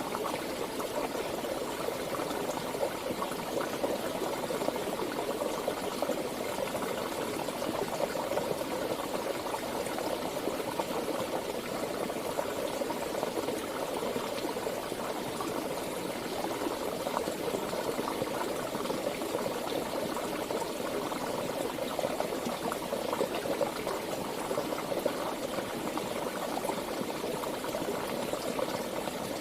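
Running water of a stream flowing and bubbling steadily, with no change in strength.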